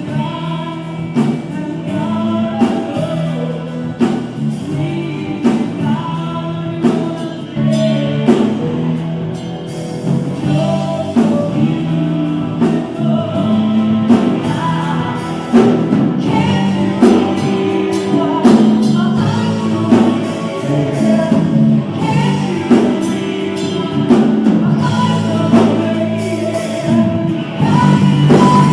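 Live pop-rock band playing with a lead vocal and drums, recorded on a phone: loud and distorted.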